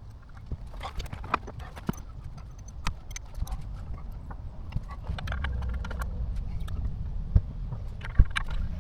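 Hand tools and metal parts clicking and knocking at an irregular pace during car repair work, over a low rumble.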